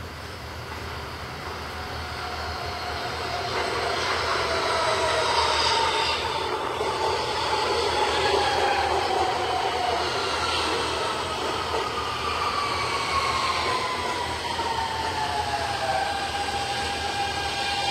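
R160 subway train pulling into the station and braking, louder over the first few seconds as it arrives. Its traction motors give a whine that falls slowly in pitch over rail and wheel noise, then levels off into a steady tone near the end as the train comes almost to a stop.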